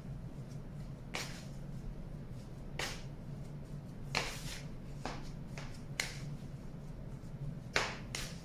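Hands kneading soft cold porcelain clay dough against a stainless steel bowl: several short, sharp smacks at irregular intervals as the dough is pressed down and pulled back off the steel, over a faint steady hum.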